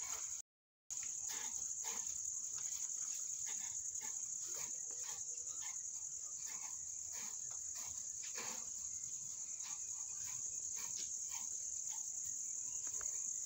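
Steady, high insect chirring, with faint irregular swishes and rasps of coconut coir fiber being pulled through hand combs.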